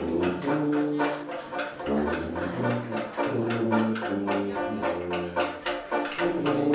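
Trad jazz on sousaphone, banjo and washboard: the sousaphone plays a line of low held notes while the banjo strums and the washboard keeps a steady beat.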